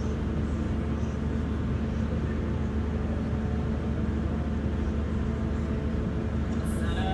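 Steady low electrical hum with hiss, the room tone of a mosque's sound system. Near the end a voice begins chanting.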